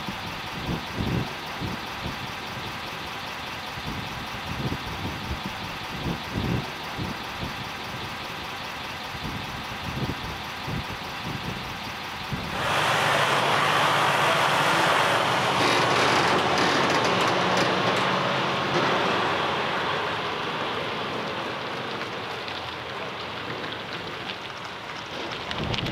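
Heavy truck's diesel engine idling, a low rumble with irregular thuds. About halfway through, the sound cuts to a louder, steady rushing hiss that slowly fades.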